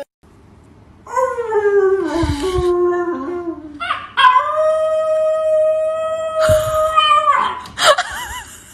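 A man howls with a falling pitch, and a small curly-coated puppy howls back with one long, steady howl starting about four seconds in, copying him.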